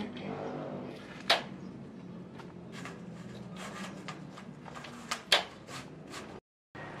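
Hollow rectangular steel tubes clinking and knocking against each other as they are handled, with scattered light clicks and two sharp knocks, one about a second in and the loudest about five seconds in, over a low steady hum. The sound cuts out briefly near the end.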